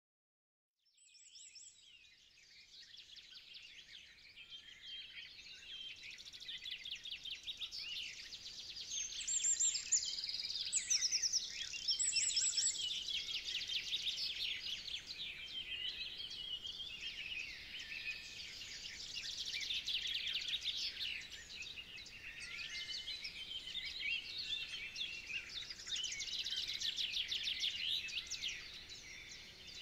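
Dense chorus of many songbirds singing at once, with quick overlapping chirps and trills, fading in about a second in.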